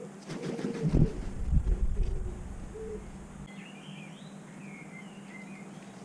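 Crow's wings flapping as it takes off from the table: heavy whooshing wingbeats that are loudest about a second in and die away by about three and a half seconds. Soft, repeated pigeon cooing is heard throughout, and a small bird chirps briefly in the second half.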